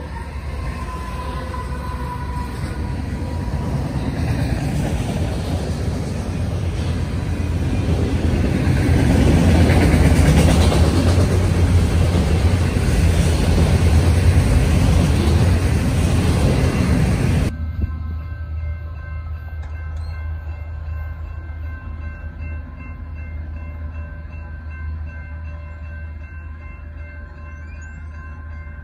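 BNSF diesel freight train passing close by, its locomotives rumbling and wheels clacking over the rails, growing loudest as the autorack cars roll past. About two-thirds of the way through it cuts abruptly to a quieter, steady hum with faint steady tones from a Union Pacific freight approaching in the distance.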